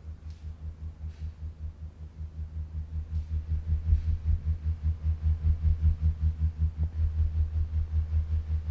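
Low synthesizer pulse in a film score, throbbing about four times a second, growing louder over the first few seconds and then holding steady.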